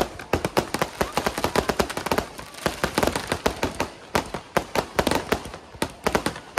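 Fireworks going off in a rapid, irregular volley of bangs and crackles, several a second, like machine-gun fire.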